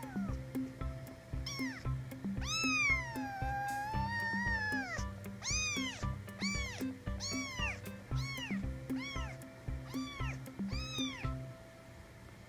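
Kitten mewing: a run of short, high, rising-and-falling mews roughly every half second, with one longer drawn-out mew a couple of seconds in, stopping shortly before the end. Background music with a steady beat runs underneath.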